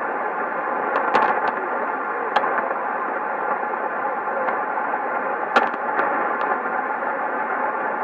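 Sony ICF-2001D shortwave receiver in AM mode, tuned to a weak station on 3375 kHz in the 90-metre tropical band, giving a steady hiss of band noise. Several sharp static crackles cut through it, loudest about a second in and again around five and a half seconds in.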